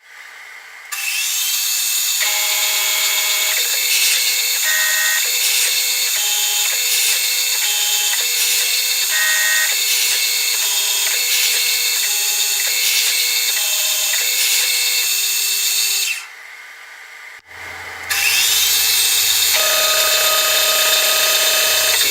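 CNC-converted BF20 Vario milling machine running: a steady high spindle whine, with stepper-motor whines that jump between pitches as the axes move. The spindle spins up about a second in, stops near the end, and spins up again after a click, with a low hum joining in.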